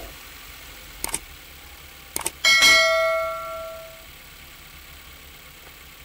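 Mouse-click sound effects, two pairs about a second apart, then a notification-bell ding from a subscribe-button animation that rings out and fades over about a second and a half.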